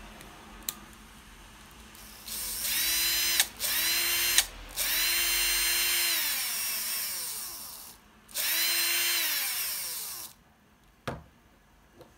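The bare brushed DC motor of a Makita 6222D 9.6V driver drill, out of its housing with no gearbox on it, run from its battery through the trigger switch. It spins up with a rising whine, holds, and winds down, four times, with sharp clicks between the runs.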